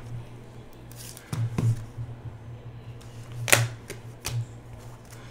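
A foil trading-card pack and its plastic wrapping being crinkled and torn open by hand: a few sharp crinkles and snaps, the loudest about three and a half seconds in. A steady low hum runs underneath.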